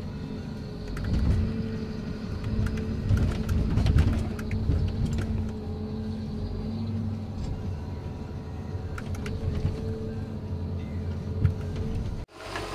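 John Deere 810E forwarder's diesel engine running steadily, heard from inside the cab while the hydraulic crane works. Louder rumbling and knocks come as the grapple grips logs and swings them onto the load, with one sharp knock near the end. The sound drops out briefly just before the end.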